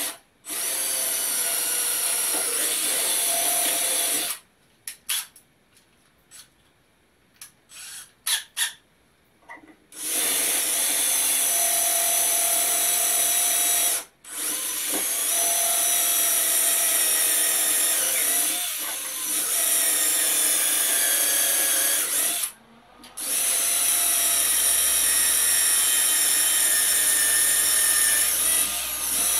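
Handheld power drill boring into aluminum: a steady high motor whine that runs in long stretches. It stops for several seconds about four seconds in, broken only by a few short trigger blips, and cuts out briefly twice more later.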